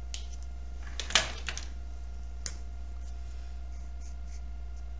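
Marker tip tapping and dabbing on paper while colouring: a few sharp clicks, with a quick cluster about a second in and another click midway, over a steady low hum.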